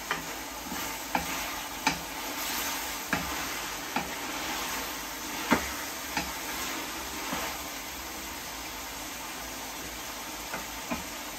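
Chunks of mutton sizzling as they fry in a pressure-cooker pan, being browned until their colour changes, with a steady hiss. A wooden spoon stirs them and knocks against the pan now and then; the loudest knock comes about five and a half seconds in.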